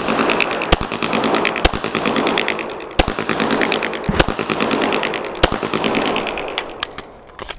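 Pistol shots fired during a USPSA course of fire: single shots roughly a second apart, then a quick string of several shots near the end, over a steady noise.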